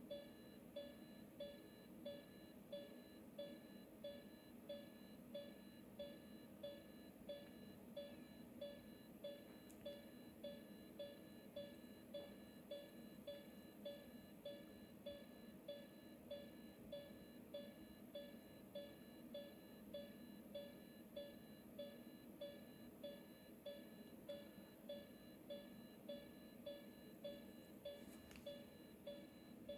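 Heart monitor (electrocardiogram) beeping faintly and steadily, short beeps at one pitch about one and a half times a second. Each beep marks a heartbeat in a regular rhythm.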